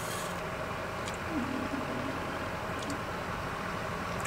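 Steady low mechanical hum with a faint hiss, with a few soft clicks and a brief low murmur of a voice about a second and a half in.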